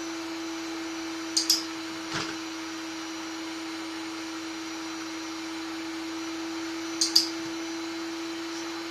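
Canister vacuum cleaner running steadily with a constant hum. Two sharp double clicks cut through it, about a second and a half in and again about seven seconds in, with a softer knock just after the first pair.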